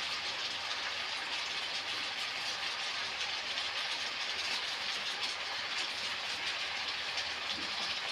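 Spiced jackfruit, potato and onion sizzling steadily in oil in a kadai during the kosha (dry-sautéing of the masala) stage of a jackfruit curry.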